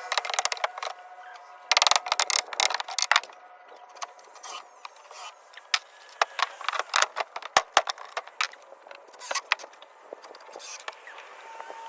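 Uneven clatter of shed framing work: sharp knocks, clicks and rattles of wood and loose hardware being handled, with a busy cluster about two seconds in and another in the middle.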